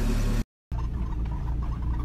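Kia Sportage 2.0 engine running with a steady low hum. The sound cuts out completely for a moment about half a second in. It then comes back as a low idle rumble with faint light ticking.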